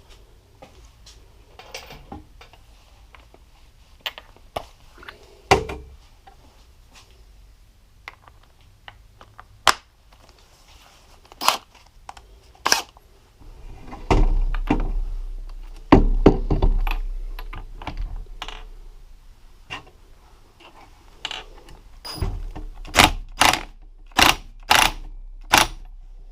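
Metal tools clinking and knocking on an ATV engine on the bench, with an impact wrench run in short, gentle bursts to tighten a 27 mm nut. Two longer bursts come about halfway through, then a quick series of about six sharp blips near the end.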